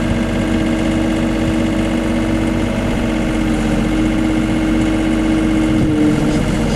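Case CX39B mini excavator's diesel engine running steadily close up while the boom and arm are worked. Its tone shifts slightly near the end.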